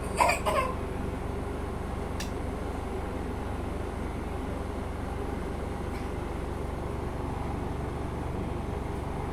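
Steady low background hum, with a toddler's short vocal sound just after the start.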